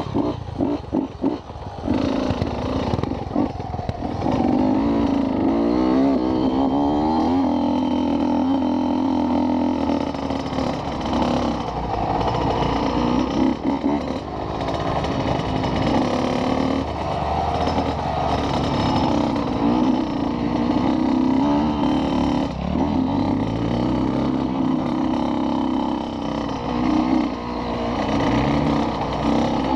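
Motorcycle engine running continuously while riding, its pitch rising and falling as the throttle is opened and closed.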